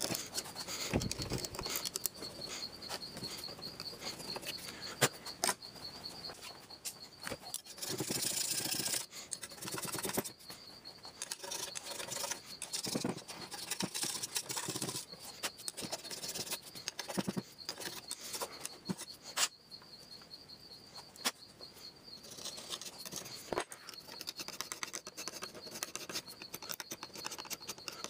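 Scrubbing and scraping on the gasket face of an old Clinton small engine's cylinder block: gritty back-and-forth rubbing strokes with many small clicks and taps, and a few louder stretches of harder scrubbing lasting a second or two.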